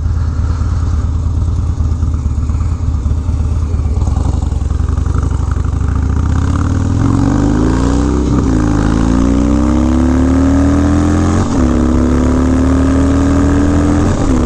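Harley-Davidson Dyna's Twin Cam V-twin through a Bassani Road Rage 3 two-into-one exhaust, pulling away at low revs and then accelerating hard. About halfway through, the revs climb steadily, broken by three upshifts, the last one near the end.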